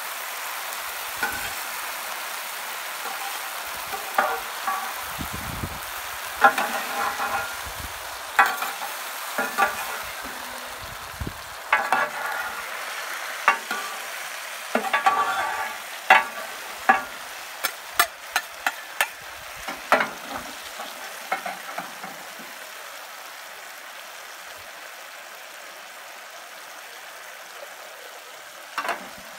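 Quails and plums sizzling on a hot plancha while metal spatulas scrape and clack against the steel plate as the birds are turned and stacked. The scraping stops about two-thirds of the way through, leaving a steady sizzle.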